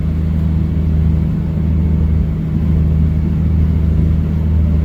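A boat's twin inboard engines running steadily under way, a low, even drone.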